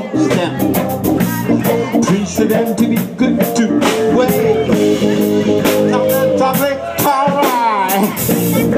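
Live rock band playing: electric guitars over a drum kit with frequent cymbal and drum hits.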